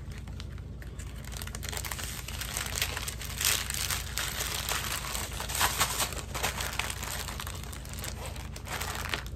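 Clear plastic bag crinkling as it is handled, a run of rustles that is loudest about three and a half and six seconds in.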